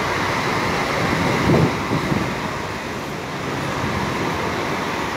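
Double-decker coaches moving slowly across a wet bus-terminal apron: a steady hum of diesel engines and a hiss of tyres, with a short low rumble about a second and a half in.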